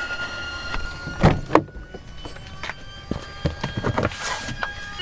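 Several short knocks and clunks of gear being handled and a vehicle's door or tailgate being worked, over a faint steady high whine in the background.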